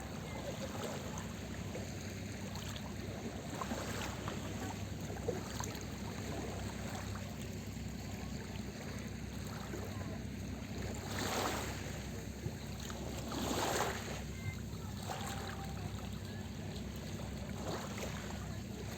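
Small sea waves breaking and washing up the shore over a steady low rumble, with two louder surges of wash a little past the middle.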